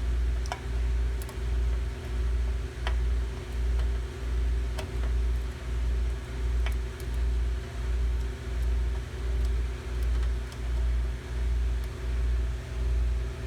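Steady low machinery hum with a regular throb about one and a half times a second, a few light clicks over it.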